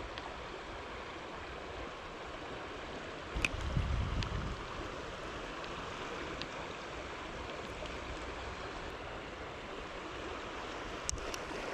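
Creek water running steadily over a shallow riffle. A brief low rumble comes about three and a half seconds in, and a few faint clicks near the end.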